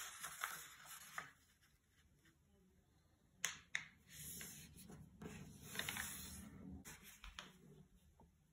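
A square of origami paper being folded and creased by hand on a table: faint rustling and sliding, with a sharp crinkle about halfway through.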